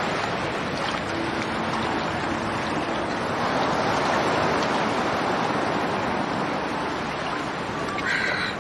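Sea waves washing ashore: a steady rush of surf that swells and eases.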